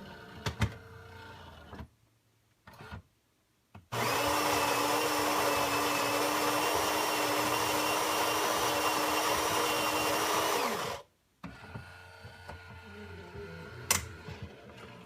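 Saeco Incanto Classic super-automatic espresso machine's built-in grinder grinding beans for the next espresso shot. The grinding is loud and steady, with a motor whine. It starts about four seconds in and stops suddenly about seven seconds later, followed by a few clicks from the machine.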